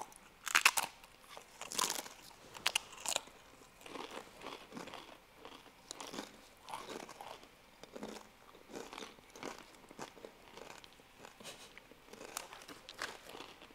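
Biting into and chewing the Paqui One Chip, a crisp tortilla chip: a few loud crunches in the first three seconds, then softer, irregular chewing.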